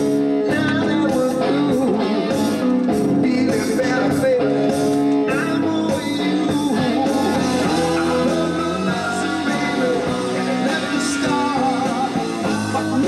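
A rock song with singing, played from a vinyl record on a belt-drive record changer.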